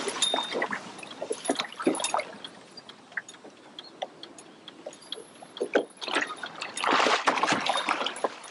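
Small waves slapping and splashing against the hull of a small fishing boat, in irregular knocks, with a louder rush of water about seven seconds in.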